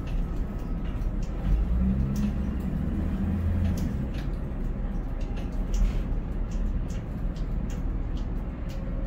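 Low, steady rumble of a Konecranes container crane's machinery heard inside the operator's cab while the spreader is lowered on its wire ropes into the ship's hold, with scattered light clicks. A low hum swells for about two seconds, starting about one and a half seconds in.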